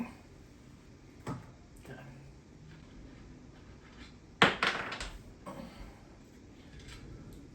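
Metal tool and axle hardware knocking and clanking while the front wheel's axle nuts are undone: a couple of light clicks, then a loud cluster of sharp metallic clanks about four and a half seconds in.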